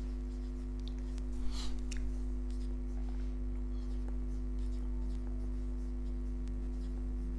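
Marker pen writing on a whiteboard: faint short scratching strokes, over a steady electrical hum.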